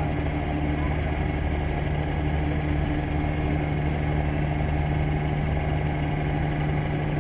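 River passenger launch's engine running with a steady low hum, heard from on board as the vessel leaves the port.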